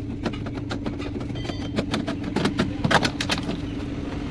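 A steady engine hum with irregular knocks and clicks over it, the loudest knocks coming about three seconds in.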